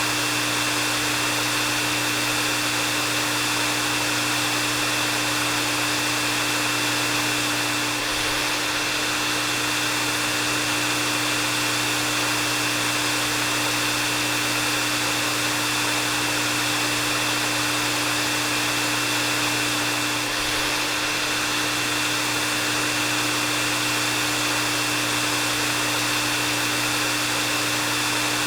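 Hair dryer running steadily: a constant rush of air with a low motor hum and a thin high whine held at one pitch. It dips very slightly twice.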